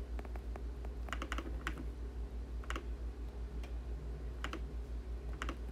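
Sparse typing on a keyboard: short clusters of key clicks about once a second, over a steady low hum.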